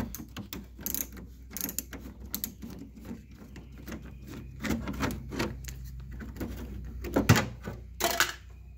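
Scattered clicks and light knocks from a hand screwdriver being handled, with a sharp knock and a short rustle near the end.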